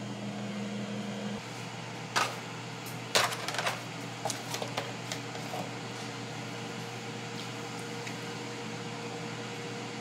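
Air fryer running with a steady fan hum while it cooks bacon, with a few short clicks and knocks from things being handled at the counter, the loudest about two and three seconds in.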